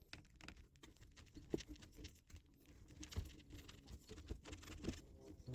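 Faint, irregular clicks and taps of hand tools working on copper refrigerant lines.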